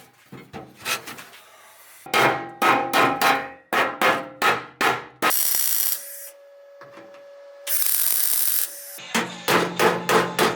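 Runs of sharp, rapid hand-tool strikes, several a second, typical of hammering and chipping while stripping paint and rust from a classic Mini's underside. In the middle the strikes pause for two bursts of hissing.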